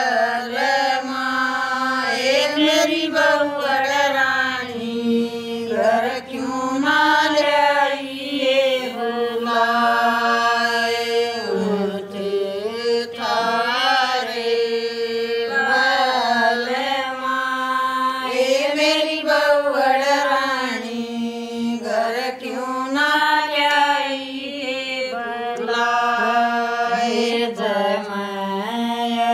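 Women singing a Haryanvi Sawan folk song, a viraha song of separation, without instruments. The voices move in long phrases of held notes that slide and waver in pitch.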